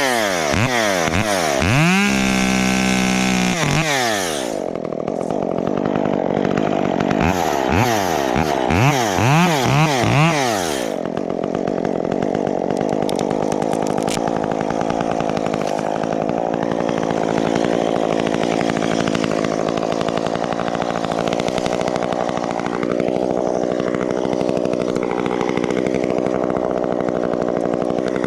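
Chainsaw engine revving up and down in quick throttle blips, held at high revs for about a second near the start. From about eleven seconds in it settles into a steady run at an even speed.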